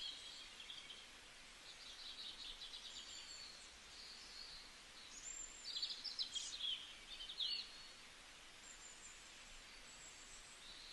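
Morning forest ambience: several birds calling over a faint steady hiss, with a quick trill about two seconds in and a run of sharp, high, falling calls from about five to seven and a half seconds in.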